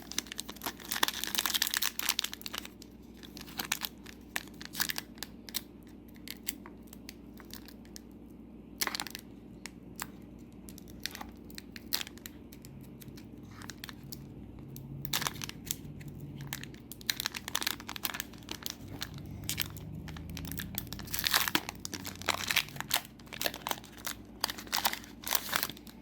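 Foil trading-card booster pack wrappers crinkling and being torn open, in bursts of crackling with lulls between them.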